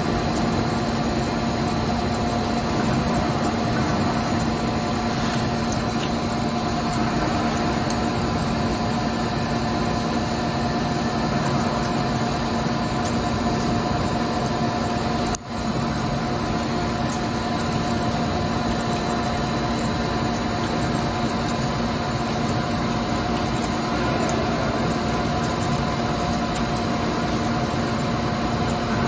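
CNC lathe running a turning cut under flood coolant: a steady mechanical hum with several held tones, one high and thin, broken by a very brief dropout about halfway through.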